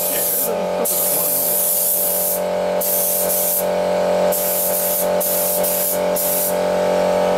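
Suction-feed spray gun on compressed air spraying paint in repeated bursts of hiss as the trigger is pulled and released, some over a second long, some brief, about seven or eight in all. A steady hum runs underneath.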